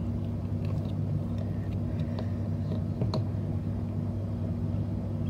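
A steady low hum, with a few faint clicks about two and three seconds in.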